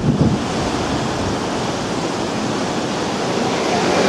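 Stormy sea rushing and breaking in white foam along a large ship's hull, with strong wind blowing over the microphone; a few low gusts buffet it right at the start.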